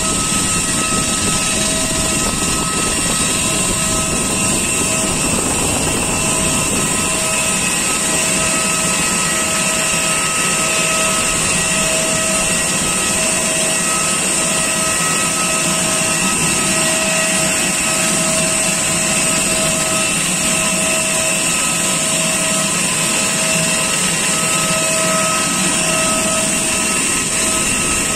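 Steady loud whine and rushing noise of jet aircraft on the apron, with a faint tone pulsing about once every second or so.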